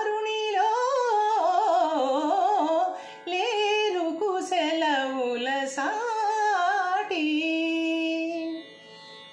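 A woman singing a Telugu film-song phrase in Mohana raga, with ornate sliding and oscillating pitch, over a faint steady drone. She holds one long steady note near the end, then her voice drops away.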